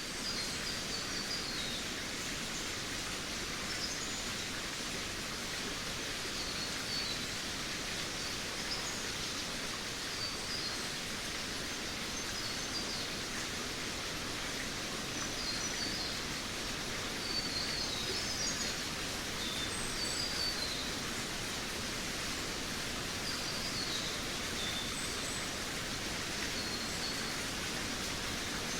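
Forest birds singing in short, high chirping phrases every second or two over a steady rushing hiss.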